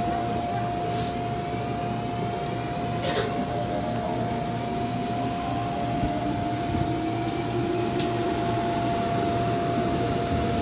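Busan Metro Line 2 subway car running, heard from inside the car: a steady rumble with a constant hum, and a fainter whine slowly rising in pitch in the second half.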